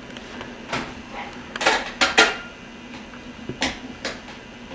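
Dishes and cutlery clinking and knocking in a dishwasher, about six separate knocks spread out, the loudest a pair about two seconds in.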